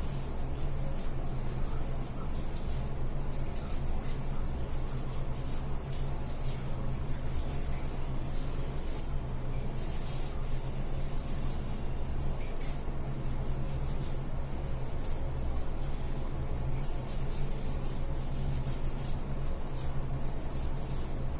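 Hair being rubbed in repeated scratchy strokes, over a steady low hum.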